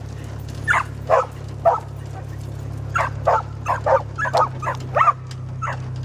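A dog riding in a truck barks over and over in a quick string, about two or three barks a second. Under the barks runs the truck engine's steady low drone.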